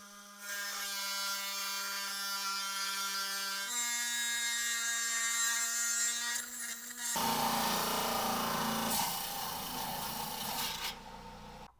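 Electric saw cutting a Trancas geode: a steady motor whine that steps up in pitch about four seconds in, then a rougher grinding noise from about seven seconds as the blade works through the stone, fading near the end.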